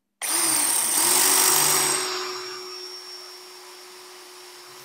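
Cordless battery drill in non-hammer (rotary only) mode boring through a glazed ceramic wall tile: a steady motor whine with grinding from the bit. It is loudest for about the first two seconds, then runs quieter and stops near the end.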